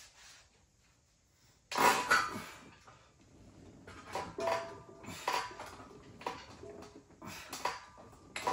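Weight plates and barbell clanking during incline bench press reps: a loud metallic clatter about two seconds in, then lighter ringing clinks about once a second.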